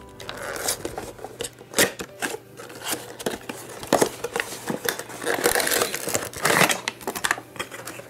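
A small cardboard booster box being slit open with a slender tool, its flaps pried back and the plastic-wrapped figure pulled out: irregular scraping, tearing and rustling of card and plastic with sharp clicks.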